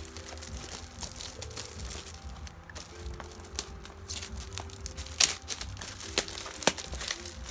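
Gift wrapping paper crinkling as a wrapped gift box is unwrapped by hand. A few sharper crackles come about five seconds in and again near the end.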